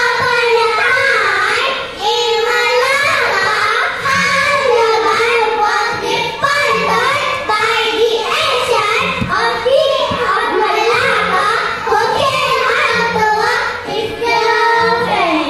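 A group of young children singing together in unison over backing music.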